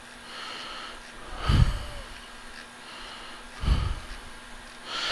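Breathing close to the microphone, in soft hissy breaths, with two short low thumps, one about a second and a half in and another near four seconds.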